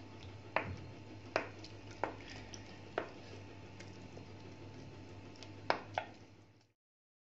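Wooden spoon stirring flour into liquid in a glass mixing bowl, knocking against the glass about six times over a steady low hum. The sound cuts off suddenly near the end.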